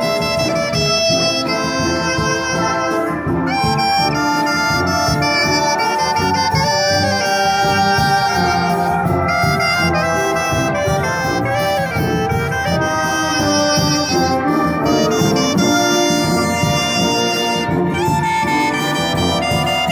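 A brass band (filarmônica) playing an arrangement of a popular song: trumpets, trombones and saxophones carrying a melody over a steady low accompaniment.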